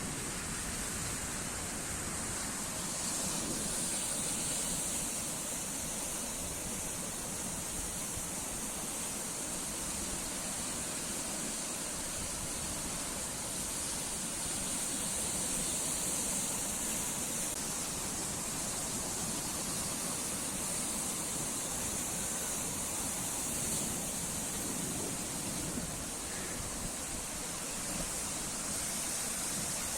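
Sea waves washing on the shore: a steady surf noise that slowly swells and eases every several seconds.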